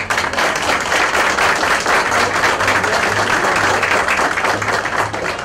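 A group of people applauding, starting all at once and tapering off near the end.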